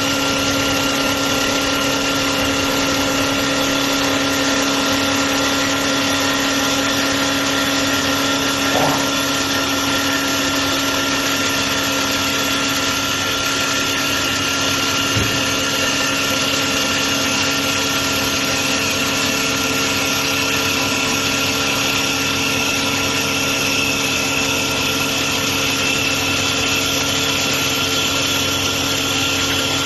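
CNC wood turning lathe running steadily, a constant motor hum and whine over an even hiss.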